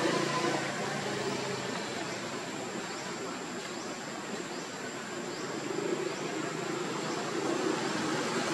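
Steady outdoor background hiss with a thin, steady high insect tone, and a few faint short chirps in the middle.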